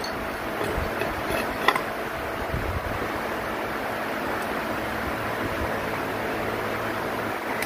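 A steady noisy hum with a few light clicks about one and a half seconds in, as a pipe clamp is tightened on a glued wooden frame.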